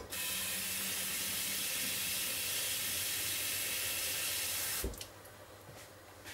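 Kitchen tap running water into an empty passata bottle, a steady hiss that stops about five seconds in with a short knock.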